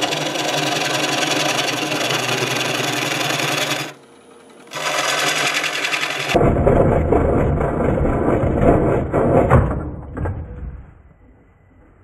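Carbide turning tool cutting the inside of a spinning black locust bowl on a wood lathe, a steady scraping that drops out briefly about four seconds in. From about six seconds the cut turns rougher and heavier, and a little before ten seconds a few sharp knocks come as the tenon breaks and the bowl tears off the chuck, after which the sound dies away.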